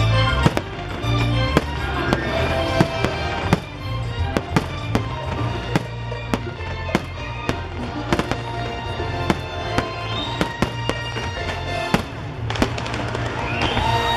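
Fireworks bursting in many sharp, irregular bangs and cracks over loud orchestral show music.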